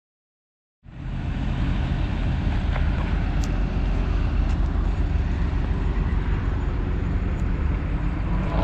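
Diesel semi-truck engine idling with a steady low rumble, coming in suddenly about a second in after a brief silence.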